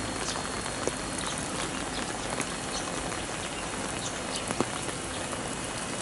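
Steady heavy rain falling, with a few louder drops tapping on surfaces now and then.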